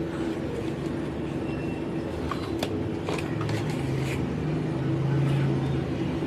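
A steady low hum that grows louder past the middle, with a few light clicks as the camping lantern's plastic housing parts are handled and pressed into place.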